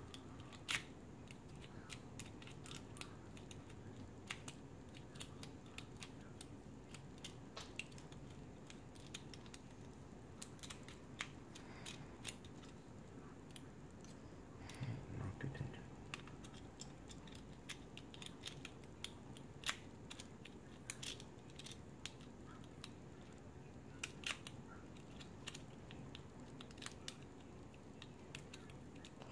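Faint, irregular metallic clicks and scratches of a City rake being rocked in and out of a clear plastic practice lock's keyway, its tip snapping against the pin stacks under tension, with a brief handling rustle about halfway through.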